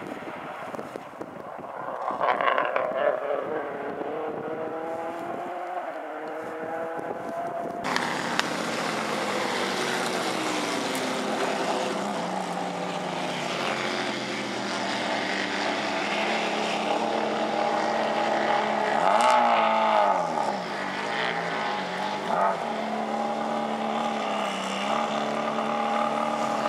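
Subaru Impreza WRC rally car's turbocharged flat-four engine. First it accelerates, the revs climbing with a brief break between gears. Then it runs at low, steady revs with one short change in revs about two-thirds of the way through.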